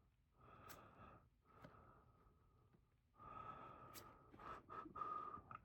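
Near silence: faint breathing in three soft stretches, with a few small clicks.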